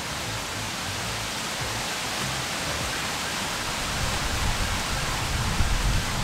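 A steady, even hiss of outdoor background noise, with an uneven low rumble that grows a little louder from about four seconds in.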